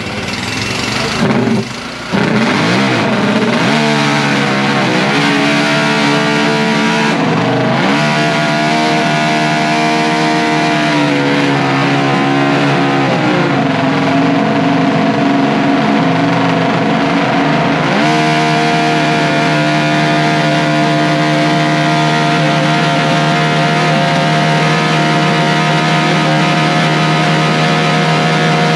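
1967 Honda RC174 350cc six-cylinder four-stroke Grand Prix racing motorcycle engine, very loud, revved up and down several times. From about two-thirds of the way in, it holds a steady high rev.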